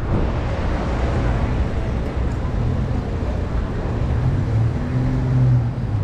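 City street traffic noise: a steady rush of cars on the road alongside the pavement. A low engine hum comes up in the last second or two.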